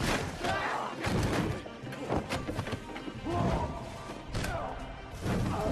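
Film fight-scene soundtrack: music under a string of sharp hits and crashes from the fight.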